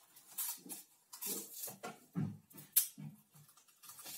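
Plastic cling film crinkling and dry corn sticks crunching as hands press them down into a bowl, an irregular run of short crackles. A few short, low vocal-like sounds come in between, the strongest about two seconds in.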